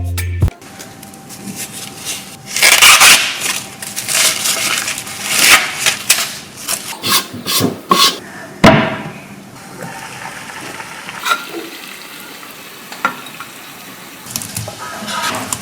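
Background music stops just after the start. Then comes kitchen clatter of pots, dishes and utensils, with irregular knocks and scrapes, and a quieter steady hiss through the second half.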